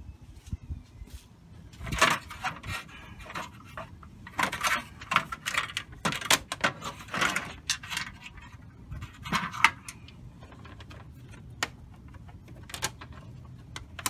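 Hard plastic clatter as engine-bay trim panels are unclipped and lifted out: clusters of sharp rattling clicks and knocks starting about two seconds in and dying away near ten seconds, then a couple of single clicks.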